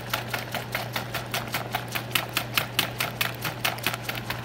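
A utensil stirring protein powder into water rapidly in a plastic bowl, clicking against the sides in a fast, even rhythm of about four to five strokes a second.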